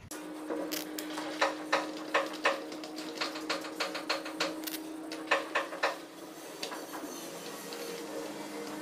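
Irregular hard clicks and knocks as the chair's legs are handled and fitted to the corners of its frame, with a cluster of sharper knocks in the first half. A steady low hum runs underneath.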